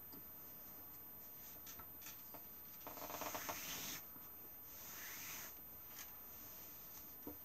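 Torn cotton sheet strips rustling and rubbing as they are worked and pulled through a stitch of a toothbrush rag rug, with a scratchy rustle about three seconds in lasting about a second, a softer swish just after, and a few light ticks.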